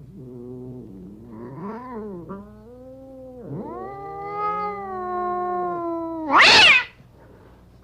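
Angry cats yowling in low, wavering tones, rising into one long drawn-out yowl. About six seconds in comes a short, loud screech, the loudest moment.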